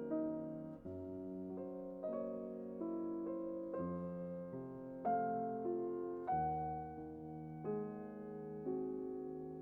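Background music: soft piano, slow chords and melody with a new note or chord about every second.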